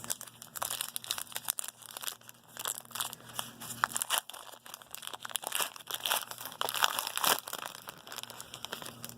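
Foil wrapper of a trading-card pack being torn open and crinkled by hand, with irregular crackling and short ripping rasps throughout.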